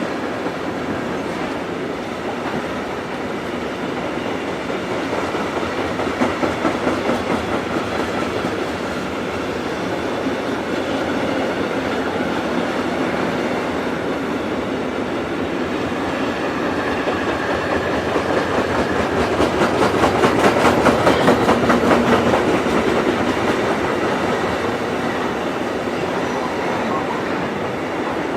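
Freight train passing, its wagons rumbling steadily with runs of rapid rhythmic wheel clacks over rail joints, loudest about twenty seconds in.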